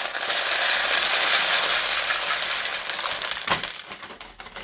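Dried black-eyed beans pouring from a plastic packet into a plastic bowl, a dense rattle of many small hard beans landing. The flow thins out and stops about three and a half seconds in.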